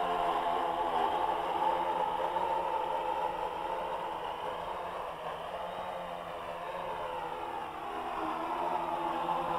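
AEE AP10 Pro quadcopter's propellers buzzing in flight, a steady multi-toned whine whose pitch drifts slowly. It grows fainter through the middle as the drone moves off, then louder again near the end.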